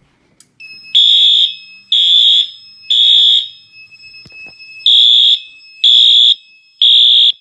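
Fire alarm horn sounding the temporal-three evacuation pattern, set off by a pulled manual pull station: three loud half-second blasts a second apart, a pause, then three more, over a fainter steady high tone.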